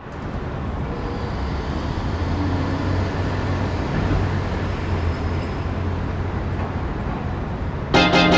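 Steady city traffic noise: a low, even hum of road traffic. Near the end, loud music with sustained, stacked chords comes in.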